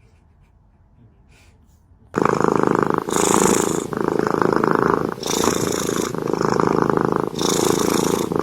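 Domestic cat purring loudly, starting about two seconds in after a faint stretch. The purr alternates with each breath in and out, roughly once a second.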